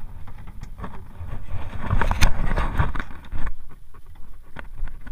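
Wind rumbling on the microphone aboard a small wooden boat, with knocks and a scraping rustle as a plastic fish cooler and its lid are handled, loudest about two seconds in.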